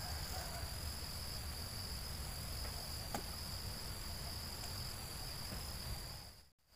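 Insects trilling in a steady, high-pitched drone over a low, even background noise. There is one faint click about three seconds in, and the sound cuts out briefly near the end.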